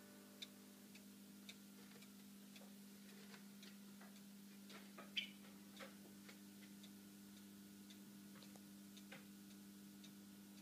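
Mechanical cuckoo clocks ticking faintly, the clicks of more than one clock overlapping unevenly, over a faint steady hum.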